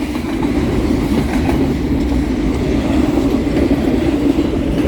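Double-stack container freight train rolling past at close range: a steady, loud noise of steel wheels on rail with no horn.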